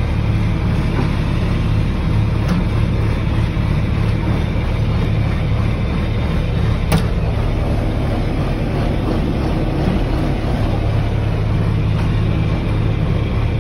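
Engine of the towing vehicle running steadily with a low drone, heard from inside its cab, with one sharp click about seven seconds in.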